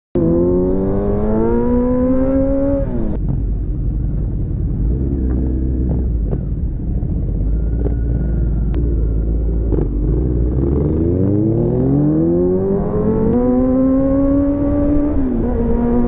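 Kawasaki Z900 inline-four engine under way, revs climbing for about three seconds, then dropping sharply as the gear changes. It runs low and steady for several seconds, climbs again, and steps down once more near the end.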